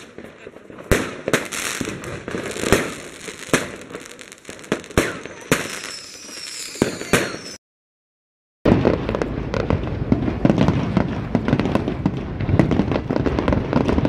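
Fireworks going off: separate sharp bangs and pops, about one or two a second. After a second of silence, a dense fireworks display follows, with continuous crackling over low rumbling booms.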